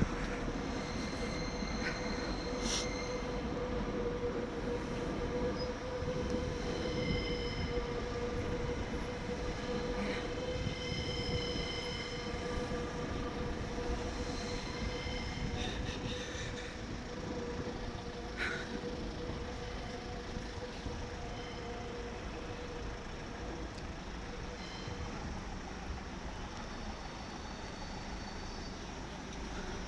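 Paris Métro train running, with a steady whining tone and occasional high-pitched wheel squeals; the whine fades out in the later part.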